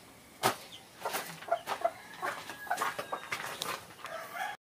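A mother hen clucking in short, low notes beside her chicks, mixed with scattered light knocks and rustles.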